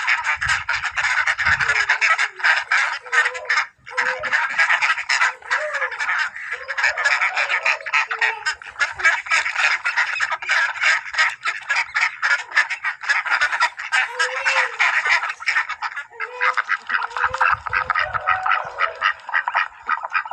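A flock of ducks quacking continuously, many rapid calls overlapping.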